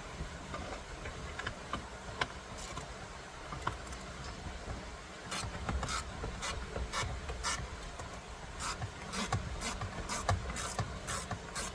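Hand tools and parts being worked at the steering wheel: scraping and rubbing with irregular sharp clicks, which come thicker from about halfway through, as screws are turned in to fasten the airbag module.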